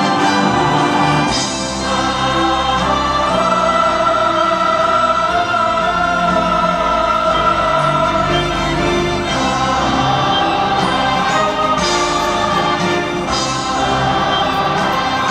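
Choir singing long held notes over an orchestra.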